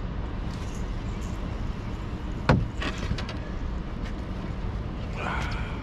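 Steady low outdoor rumble around an open aluminum boat, with one sharp knock about halfway through and a few lighter clicks just after.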